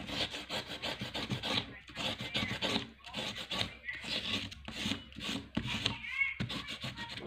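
Crayon scratching back and forth on paper in rapid colouring strokes, a dense run of short rasps with brief pauses between bursts.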